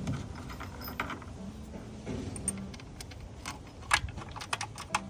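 Metal hand tools and bolts clinking and clicking at irregular intervals, more often in the second half, as a throttle body is refitted and bolted down.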